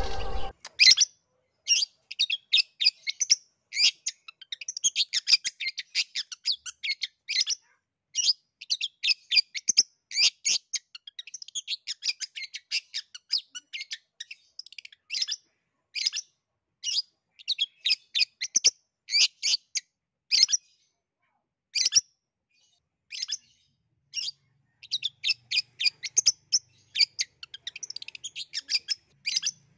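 Long-tailed shrike (cendet) singing: quick runs of short, high chirps and twitters, broken by brief pauses.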